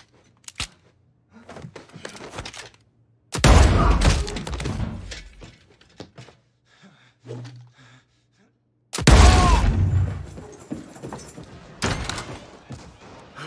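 Two loud gunshots about five and a half seconds apart, each ringing off in the room, with a few small knocks between them.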